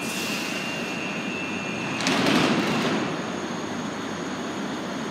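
Class 420 S-Bahn electric train standing at an underground platform: a steady high-pitched tone stops about two seconds in, as the doors close with a sudden clatter and a rush of air. A low station rumble runs underneath.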